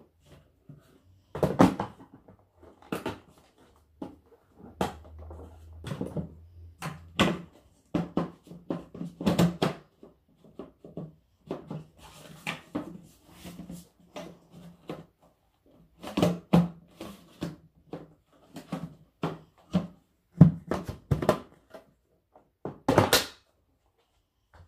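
Irregular sharp knocks and clicks of handling, at times several a second, at others a second or more apart, with a low hum under some of them. The loudest knock comes about a second before the end.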